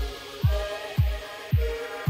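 Background music: a deep kick drum beating about twice a second under held chords.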